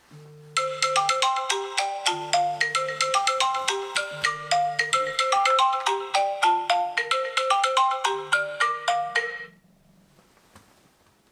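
Phone alarm tone playing: a quick, repeating melody of bright plucked-sounding notes over a low repeating note, starting about half a second in and cutting off about two seconds before the end.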